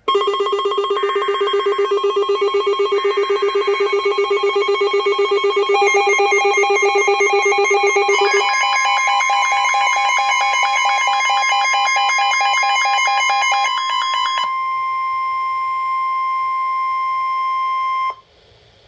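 Emergency Alert System alert tones for a severe thunderstorm warning. A fast-pulsing electronic alarm tone, layered with other tones, has short buzzy data bursts over it twice in the first few seconds. About eight seconds in it gives way to a single steady high tone that cuts off suddenly near the end.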